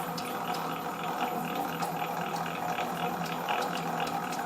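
A stick-cutting machine's cutting unit running with a steady hum and a repeated ticking. The ticking comes from play in the cutting unit: its grooves no longer match, which bends and marks the sticks.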